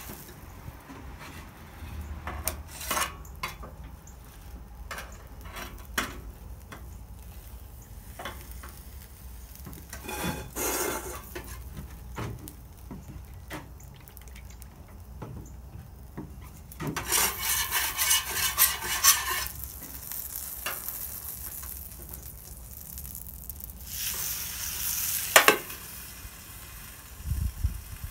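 Food and oil sizzling on the hot steel top of a Blackstone 36-inch griddle, with scattered clinks and scrapes of a metal spatula and steel dome covers. Two louder spells of sizzling and scraping come about 17 seconds in and again around 24 seconds in.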